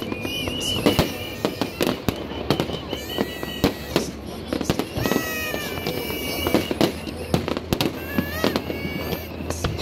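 Aerial fireworks display: shells bursting overhead in a rapid, irregular string of bangs, several a second.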